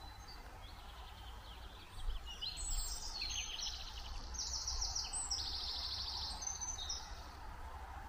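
Small woodland songbirds singing, with quick chirps and fast trills, busiest from about two seconds in until near the end. A faint low rumble runs underneath.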